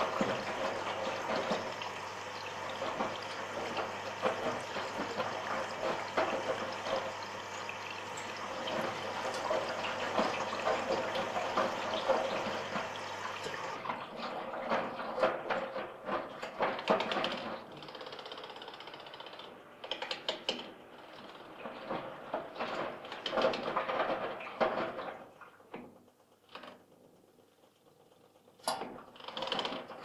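Washing machine with water rushing in and the wash sloshing in the drum. About halfway through the steady rush stops, leaving irregular sloshing swells, then a short lull and a couple of sharp clicks near the end.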